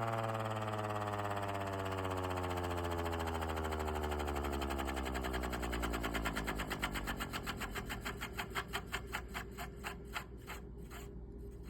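3D-printed air raid siren driven by a bench grinder, winding down: its wail falls steadily in pitch, then breaks into a pulsing chop that slows and fades as the rotor coasts toward a stop.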